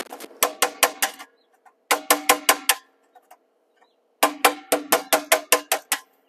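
Klein pliers tapping a conduit lock nut tight inside a metal electrical panel: quick metal-on-metal taps, about five or six a second, in three runs with short pauses, the panel ringing briefly after each tap.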